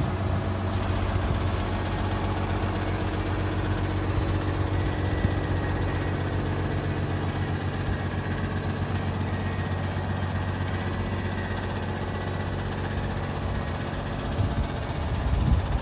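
Cummins ISB six-cylinder turbo-diesel of an International 4300 dump truck idling steadily, a low even hum, with a few louder low bumps near the end.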